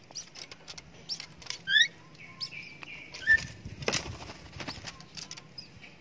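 Javan myna flapping its wings and hopping about a metal bird cage: scattered short taps and clicks of wings and feet, with a few short bird chirps and whistles, including a quick rising chirp nearly two seconds in.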